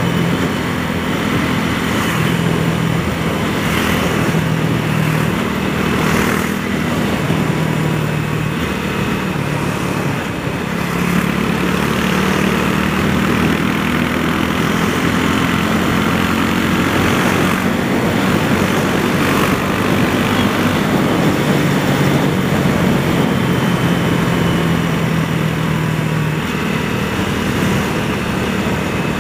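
Honda CB300R single-cylinder motorcycle engine running under way, its pitch rising and dropping several times as the rider opens the throttle and changes gear, over steady wind and road noise.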